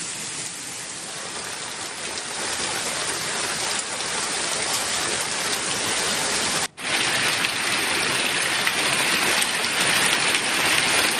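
Heavy rain pouring down on flooded streets: a steady hiss that swells a little over time and cuts out for a split second about two-thirds of the way through.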